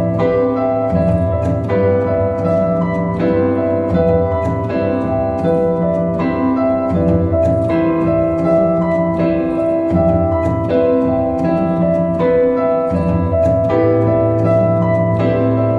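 Electronic music played live on touchscreen tablets: quick plucked, keyboard-like notes over held chords and a steady low bass, continuing without a break.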